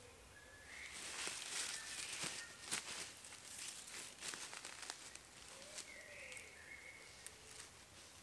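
Faint rustling and scattered sharp clicks as a mesh tent's line is handled and feet shift on dry leaf litter, with a few short faint chirps.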